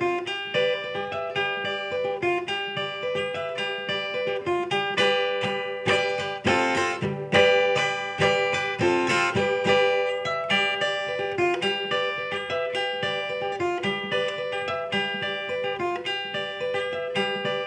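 Acoustic guitar in open D tuning with a capo, played to imitate a Northeastern Brazilian viola in baião style: a quick picked melody over a ringing drone string, with a few strummed chords about halfway through.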